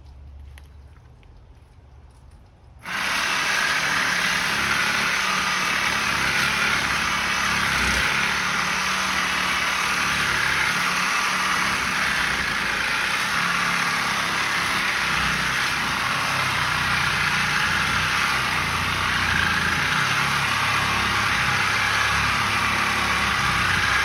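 Electric power tool cutting through a corroded steel well pipe. It starts suddenly about three seconds in and runs loud and steady with no clear rhythm.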